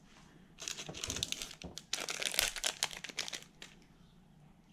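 Plastic packaging crinkling and crackling as it is handled, in two bouts, the second longer, about two seconds in.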